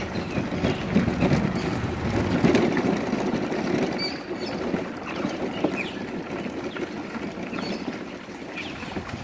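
Wheels of a pushed basket trolley rolling over a gravel driveway: a steady, rough, grinding noise.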